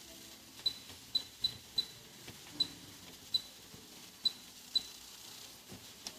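Washing machine control panel giving short high beeps, nine of them at irregular intervals over about five seconds, as its controls are operated.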